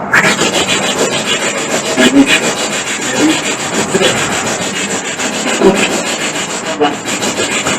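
SB7 spirit box sweeping through radio stations: a continuous rasp of static rapidly chopped into short fragments, with brief snatches of broadcast sound.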